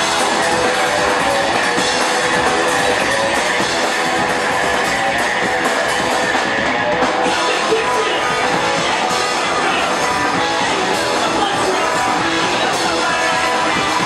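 Punk rock band playing live: electric guitar, bass guitar and drum kit, loud and unbroken.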